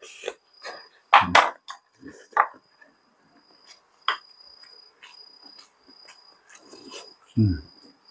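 Mukbang eating sounds: a spoon and chopsticks clicking against bowls and dishes, with chewing and a couple of short low vocal grunts, about a second in and near the end. A faint high chirping comes and goes behind it.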